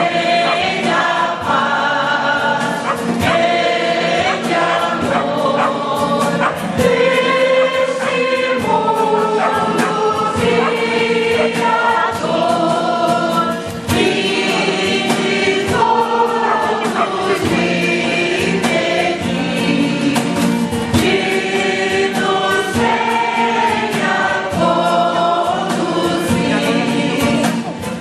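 A choir of many voices singing together, holding long notes that change every second or two.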